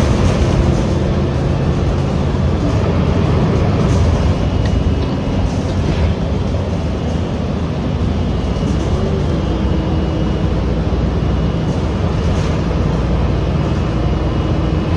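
City transit bus underway, a steady engine and road rumble with a few brief rattles and knocks.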